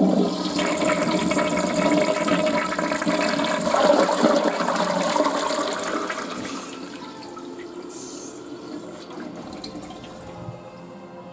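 A toilet flushing: a loud rush of water for about six seconds, then dying down to a quieter steady hiss of water running.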